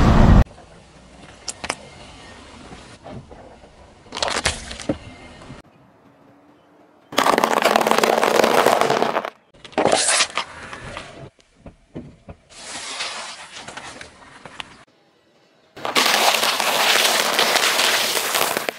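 A car tyre crushing a series of objects on asphalt one after another: short bursts of cracking and crunching separated by quieter gaps, with a brittle plastic crack right at the start and a long crunching stretch near the end as rice cakes break up under the tyre.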